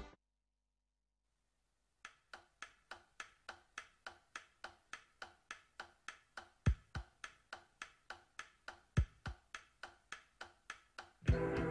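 Background music at a sparse, quiet stage: about two seconds of silence, then a steady beat of ticks about three to four a second with a few low drum hits, before the full music comes back near the end.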